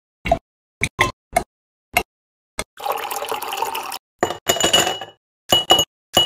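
Pieces of jelly dropped one at a time into a glass tumbler, giving short soft taps, then liquid poured into the glass for about a second. After that, ice cubes drop in and clink against the glass with a short ringing tone.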